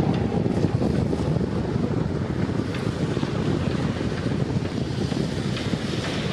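Strong wind buffeting the microphone: a steady, gusting rumble with no clear tone.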